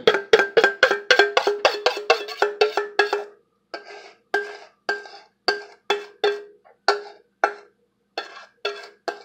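A spoon knocking against the inside of a stainless steel mixing bowl, each strike making the bowl ring, while the last of the whipped chocolate topping is scraped out. A fast run of about four knocks a second gives way, about three seconds in, to slower single knocks every half-second or so.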